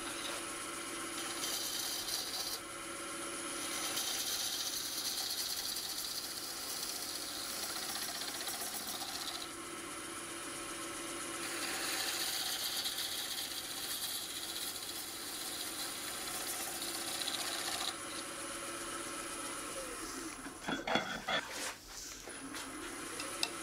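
Wood lathe running with a steady hum while a turning tool cuts a spinning yew blank, the cutting hiss swelling in several long stretches. About twenty seconds in, the lathe winds down and a few knocks follow. Near the end it spins back up.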